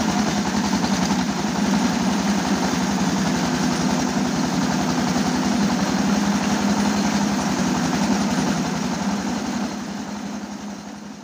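A power tiller's diesel engine runs steadily with a rapid, even chugging, driving a homemade rice mill as milled rice pours out of its chute into a metal bucket. The sound fades out near the end.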